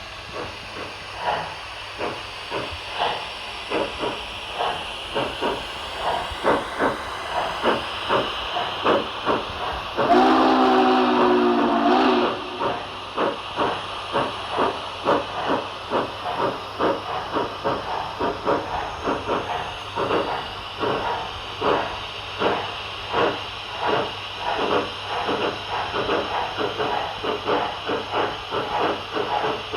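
Digital steam sound from an HO scale model steam locomotive's LokSound 5 decoder through its onboard speaker: steady hiss with exhaust chuffs that quicken over the first several seconds to about two or three a second. A chime whistle sounds for about two seconds about ten seconds in, the loudest part.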